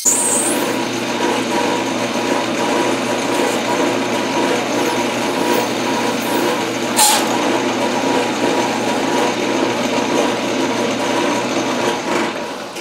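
Metal lathe cutting, the tool chattering against the spinning metal workpiece: a harsh, steady cut with several held tones, the sign of tool vibration that leaves a poor finish. A sharp brief spike about seven seconds in, and the cutting noise falls away shortly before the end.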